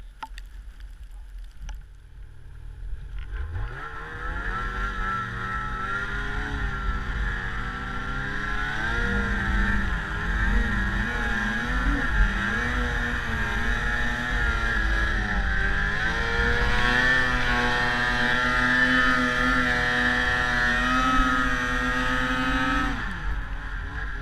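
Snowmobile engine heard from the rider's seat: quiet at first, it revs up a few seconds in and runs under throttle as the sled moves off, its pitch rising and falling with the throttle. Near the end it drops back as the throttle is let off.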